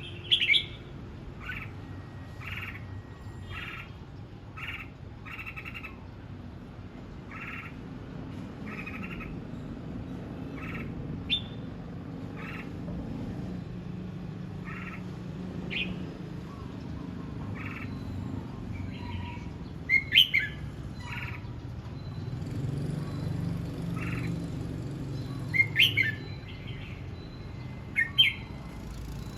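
Red-whiskered bulbul singing: a long run of short repeated chirps, with a few louder, sweeping phrases near the start, about two-thirds of the way through and near the end, over a low steady hum.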